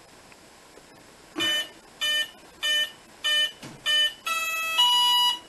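Electronic speed controller beeping at power-up: five short, evenly spaced beeps that count a five-cell battery, then two longer steady tones near the end, the second lower in pitch.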